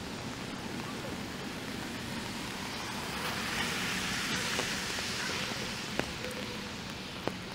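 Rain on a wet city street with traffic: a steady hiss, and a car's tyres swishing past on the wet road, swelling about three seconds in and fading. Two short sharp taps near the end.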